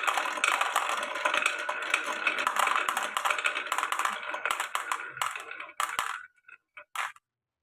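Many glass marbles rolling and clattering through a wooden marble run, a dense stream of small clicks and knocks that thins out after about five seconds to a few last clicks and then stops.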